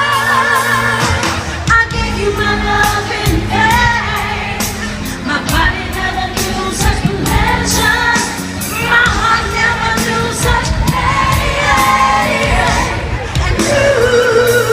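Live freestyle pop music: a singer's voice over a steady beat, with wavering held notes.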